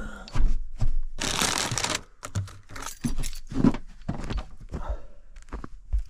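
Rustling, crinkling and knocking of things being handled, with a longer burst of rustling about a second in.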